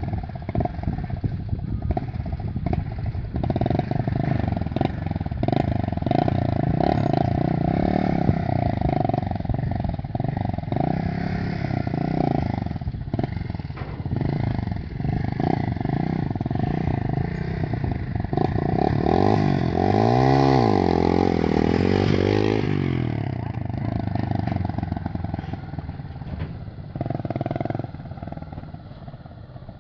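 Small motorcycle engine running as the bike is ridden up and stopped. Its revs are pushed up and down a few times about two-thirds of the way through, which is the loudest part, and the sound fades near the end.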